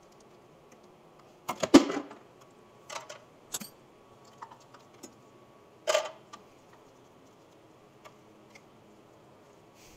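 Clanks and clicks of hand work on a snowmobile engine as its pull-start cord is taken off: a loud cluster about a second and a half in, single knocks near three and six seconds, and a few faint ticks after.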